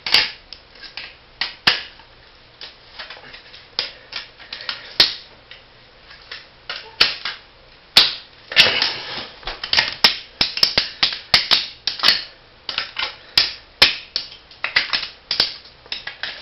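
Irregular sharp clicks, knocks and clatter of a floppy disk drive being handled and worked on. Scattered at first, then coming several a second from about halfway through.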